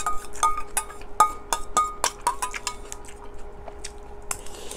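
A metal spoon clinking against a stainless steel bowl in a quick, irregular series of light clinks, each ringing briefly, as food is scooped.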